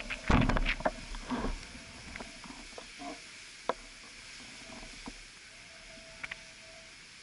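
Knocks and clatter of the camera being handled and tilted during the first second and a half. After that, a steady hiss of wind and surf with a few faint clicks.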